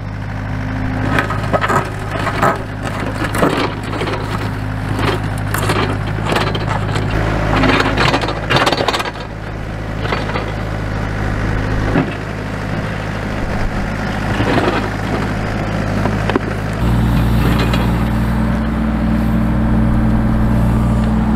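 Hyundai mini excavator digging a trench across a gravel driveway: the bucket scrapes and crunches through gravel and rock over the steady hum of its running engine. The engine gets louder for the last few seconds.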